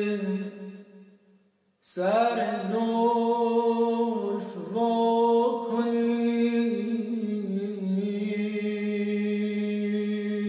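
A man singing Persian classical avaz unaccompanied. A held note fades out, and after a brief pause about two seconds in a new long phrase begins with a rising swoop. It has a quick wavering ornament in the middle and is held steadily to the end.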